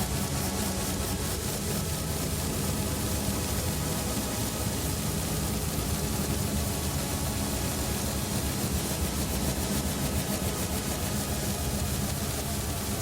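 Experimental electronic music: a dense, distorted noise drone with a steady low rumble and a faint fast pulse on top, much like a running engine or train.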